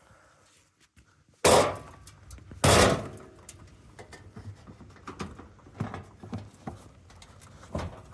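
Prying a part off a washing machine with a screwdriver: two loud, sharp cracks about a second apart, followed by lighter clicks and knocks as the part is worked loose.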